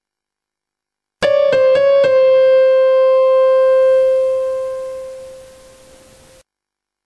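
Short keyboard music sting: four quick struck notes about a second in, the last one ringing on and slowly fading, then cut off suddenly.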